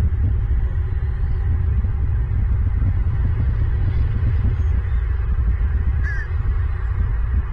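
A steady low rumble throughout, with one short chirping bird call about six seconds in.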